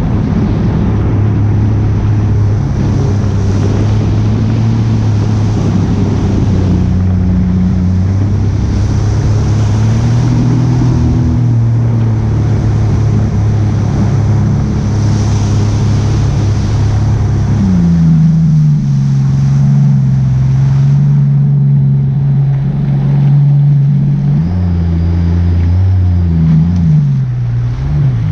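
An engine running under way, its pitch shifting with speed: a rise about two-thirds of the way through, then further changes near the end.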